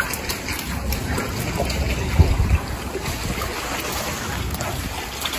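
Steady noise of running, trickling water with a low rumble underneath and a brief low bump about two seconds in. No penguin calls stand out.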